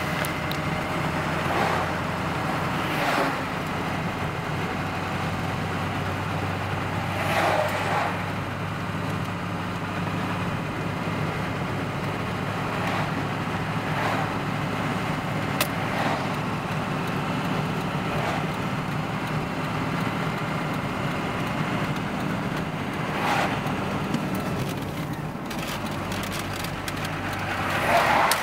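Steady engine and road noise from inside a moving car, with oncoming vehicles whooshing past several times.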